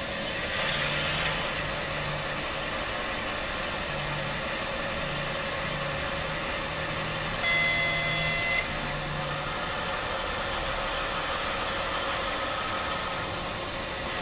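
Digital sound decoder in a Piko HO-scale DB class 260 diesel shunter model, playing a diesel engine running steadily through the model's small speaker. About halfway through comes a loud horn blast lasting about a second.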